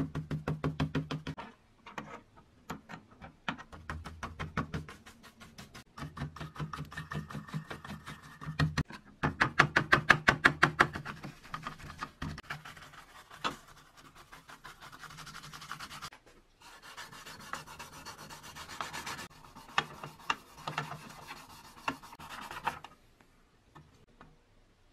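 A metal scraper rasping softened, lifting paint off a metal toy boat hull in quick repeated strokes, loudest about ten seconds in. Toward the end an abrasive scouring pad scrubs over the parts on a rubber mat, and the sound stops abruptly a couple of seconds before the end.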